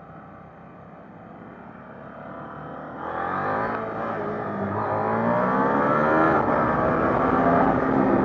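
KTM 890 Duke GP's parallel-twin engine, quiet under wind noise at first, then opened up hard about three seconds in. Its pitch climbs and drops back at each quick upshift as the bike accelerates.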